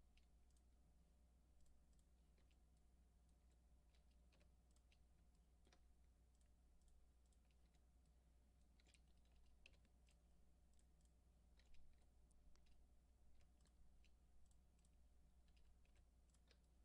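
Faint, irregular clicks of a computer keyboard and mouse being used, over near-silent room tone with a low steady hum.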